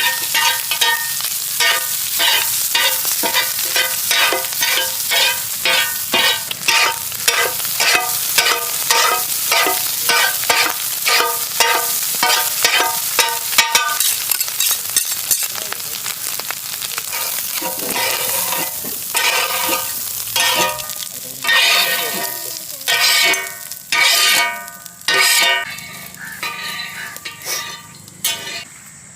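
A spatula stirring and scraping squid pieces across a tawa over frying oil sizzle. The strokes come fast and even, about two or three a second, for roughly the first half, then slow to separate, spaced-out scrapes that fade near the end.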